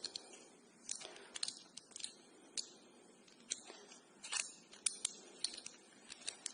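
Irregular light clicks and taps of small metal tools and copper tubing being handled and set down: a pipe-flaring tool and its clamp bar.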